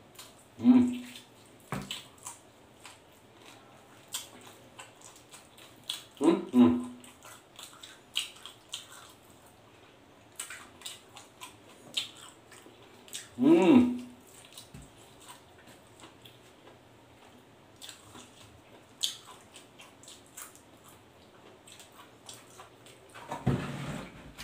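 Close-up mouth sounds of a man eating roast pork leg and rice with his hands: wet chewing and lip-smacking clicks throughout, broken by three short hums, about a second in, about six seconds in and about thirteen seconds in. A short louder noise comes near the end.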